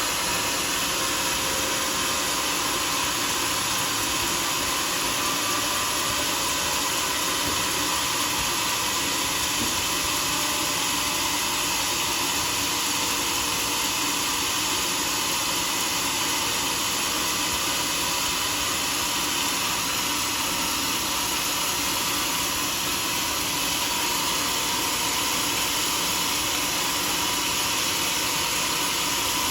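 Sawmill saw running steadily through a teak log, giving an even, unbroken noise that sits mostly in the upper range.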